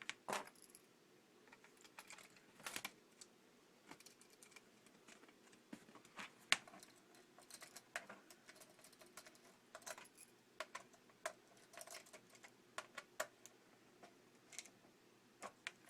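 A small screwdriver driving a tiny screw back into a laptop's screen assembly: irregular light clicks and ticks of metal tool on screw and plastic.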